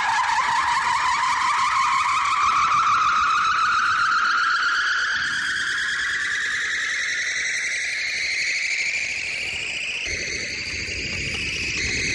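A long electronic riser played through a large outdoor DJ sound system: one pitched tone with overtones climbing slowly and steadily in pitch for about ten seconds, then jumping higher and holding.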